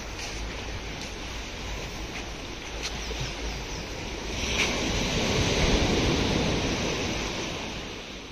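Sea surf washing against a rocky shore, with wind rumbling on the microphone. A wave surges louder about halfway through, and the sound fades out near the end.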